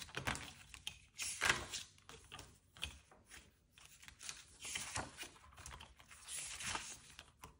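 Clear plastic binder pockets and paper pages rustling as they are flipped over in a ring-binder planner, in a string of short, irregular rustles.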